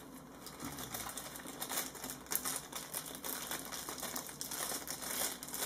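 Clear plastic bag crinkling and rustling in the hands as it is worked around a small plastic PoE injector, a dense run of small sharp crackles.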